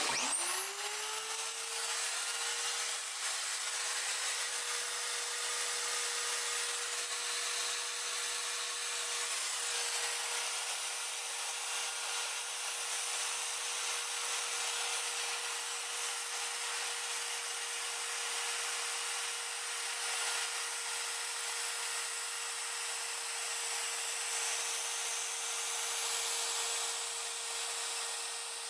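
A DIY CNC router's spindle spins up: its whine rises to a steady high pitch within about a second and a half. Then a 5/32" flat router bit routs a groove in plywood at 450 mm/min, a steady whine over rasping cutting noise.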